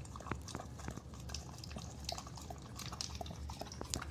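A dog lapping sparkling water from a plastic container: a run of irregular, wet little clicks and drips.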